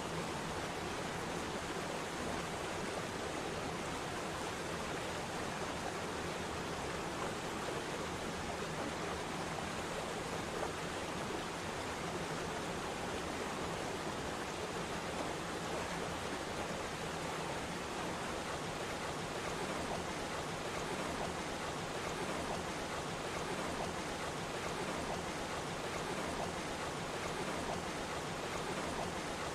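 Waterfall's water rushing steadily, an even hiss-like roar with no breaks.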